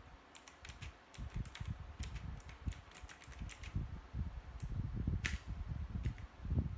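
Keys of an HJK917 mechanical keyboard with clicky blue switches being typed in a quick run of sharp clicks for about three and a half seconds, then a few single keystrokes, the loudest about five seconds in. Low thumps sound underneath.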